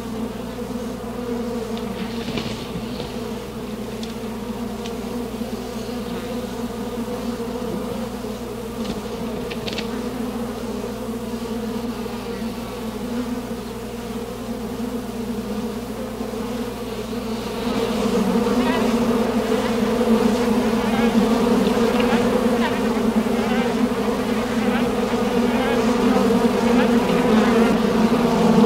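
A steady, low buzzing drone that grows louder about two-thirds of the way through.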